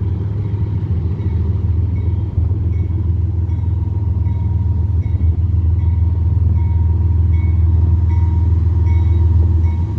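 Union Pacific train's diesel locomotive running with a deep, steady rumble that grows slightly louder. A faint high ding repeats evenly about every two-thirds of a second over it.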